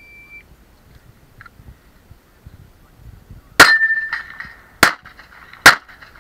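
Electronic shot timer gives a short start beep, then a handgun fires three shots: the first about three and a half seconds later, the next two about a second apart.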